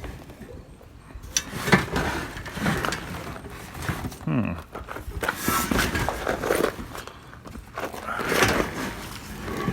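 Irregular knocks, clanks and scrapes as discarded metal junk and household items are rummaged through and shifted, with a short falling squeal or groan about four seconds in.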